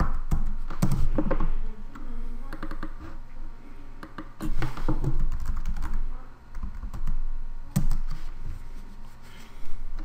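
Typing on a computer keyboard: a few short bursts of keystrokes with pauses between them.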